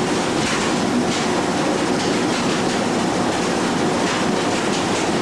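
Steady, loud mechanical running noise of a fishing trawler's engine and deck machinery.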